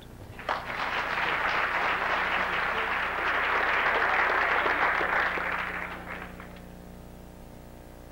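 Audience applauding, starting about half a second in and dying away after about six seconds.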